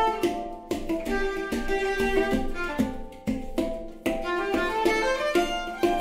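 Several handpans struck by hand in a steady pattern of ringing notes, with a violin bowing a melody over them.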